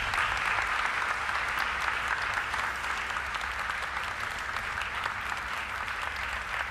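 A large audience applauding steadily: many hands clapping together in a dense, even patter.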